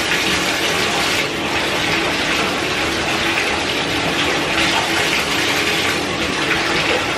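Water running from a bathtub spout into the tub and splashing over a hand held under the stream: a steady rush.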